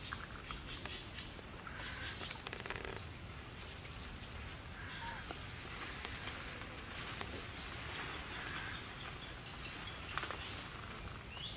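Outdoor ambience: small birds chirping in short, high calls repeated throughout, over a steady low background hum, with a few faint clicks.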